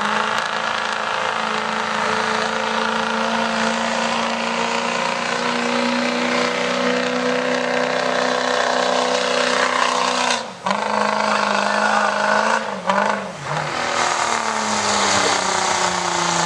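A pulling vehicle's engine running hard at high revs during a pull. It cuts out sharply for a moment about ten seconds in and stumbles again a couple of seconds later, then its pitch drops off near the end.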